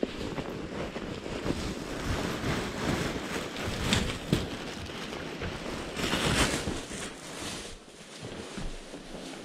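Wind buffeting the microphone, a gusty rushing with a fluttering low rumble, the strongest gusts about four seconds in and again around six seconds in, with scattered light knocks.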